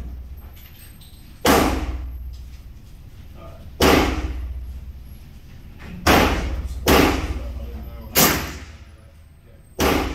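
Six gunshots at uneven intervals, two of them less than a second apart. Each sharp report is followed by a short echoing tail in the indoor range.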